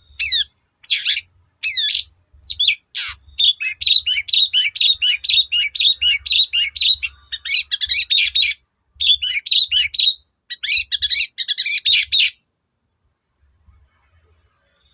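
Long-tailed shrike (cendet) singing a fast, varied run of sharp, downward-slurred chirps. The song stops about twelve seconds in.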